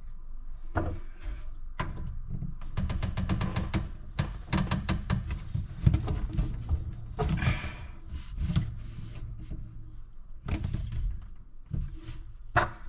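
Plastic waste pipe and fittings knocking and clicking as they are handled and pushed together, with a quick run of rapid clicks about three seconds in.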